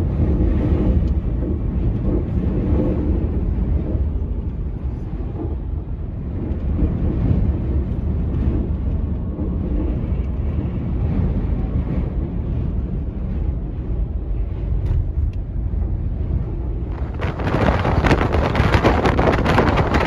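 Strong gusting wind buffeting the microphone as a heavy, steady low rumble. About seventeen seconds in, a louder, harsher hiss joins it.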